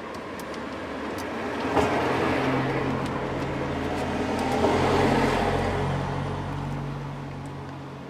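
A motor vehicle driving past: engine and tyre noise swells to its loudest about five seconds in, then fades away. A few faint clicks sound over it.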